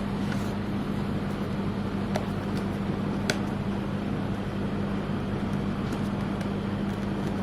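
A steady low hum with a few light clicks, about two and three seconds in.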